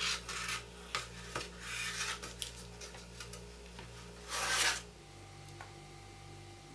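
A series of rough scraping strokes, the longest and loudest about four and a half seconds in, over a steady low hum; after that only the hum remains.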